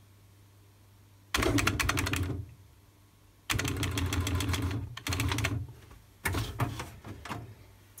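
IBM 6746 daisy-wheel electronic typewriter printing in four quick runs of rapid strikes, about ten a second, with short pauses between runs and a low hum in the gaps.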